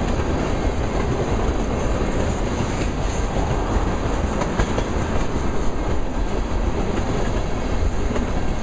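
Freight train of ethanol tank cars rolling past close by: a steady, even noise of steel wheels running on the rails.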